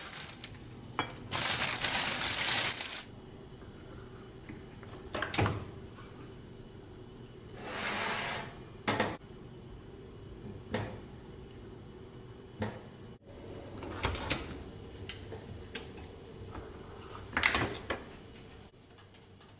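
Kitchen handling sounds: scattered sharp clinks and knocks of a metal oven rack and oven door being handled, with two short rushing hisses, one about a second in and one near the middle.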